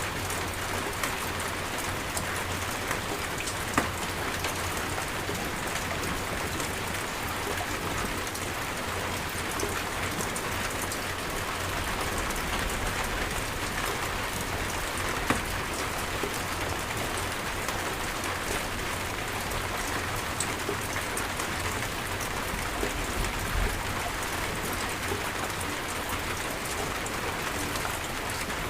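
Steady rainstorm: rain falling hard on surfaces in an even hiss, with a couple of sharper single drop hits about 4 and 15 seconds in.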